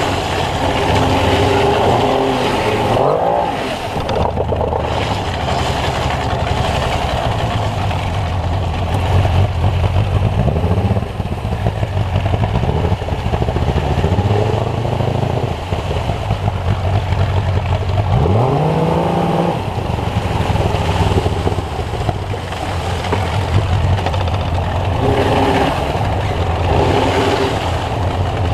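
A 50 hp outboard motor driving a water-jet unit on an inflatable boat, running steadily with its revs rising in several quick surges and settling back. Rushing river water is heard under it.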